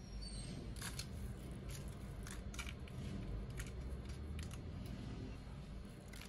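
A run of short, irregular clicks or snips, roughly one or two a second, over a low steady hum.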